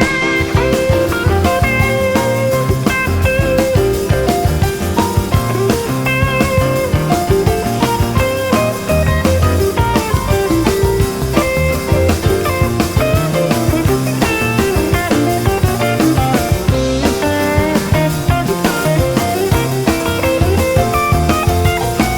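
Instrumental rock music with guitar and drums, playing steadily with no singing.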